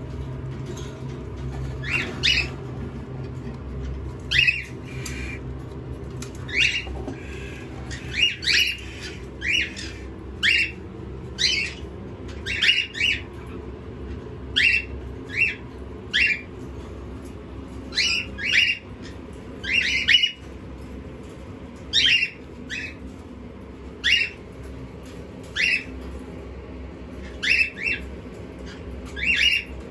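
A pet parrot giving short, harsh squawks over and over, about one a second and sometimes two in quick succession, over a steady low hum.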